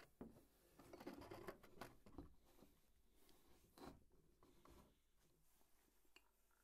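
Faint handling noise in a small room: soft rustling with scattered small clicks and knocks, busiest in the first two seconds, with one sharper knock about four seconds in.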